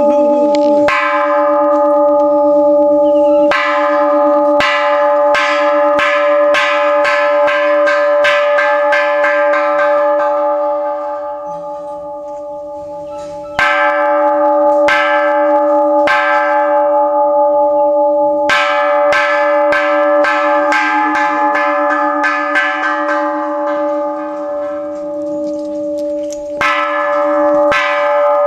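A bell struck repeatedly, in runs of strokes about two a second with short pauses between the runs. Each stroke rings on, so the tones overlap into a steady ringing.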